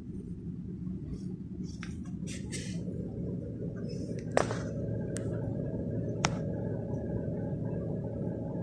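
Steady low machine hum, with a few brief rustles and sharp clicks from cables, insulation and the adapter being handled.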